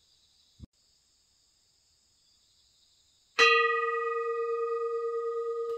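A faint soft knock less than a second in, then a near-silent pause, then about three and a half seconds in a single strike on a small metal bell that rings on in a sustained, slightly wavering tone.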